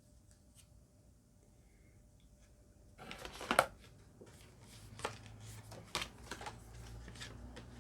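Packaging of a makeup palette being handled and opened: rustling and crinkling with several sharp clicks, starting about three seconds in.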